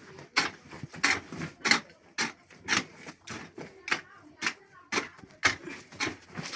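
Repeated sharp knocks, about two a second, from hand work on the masonry foundation of a mud-kitchen stove, such as bricks or mud being tapped into place.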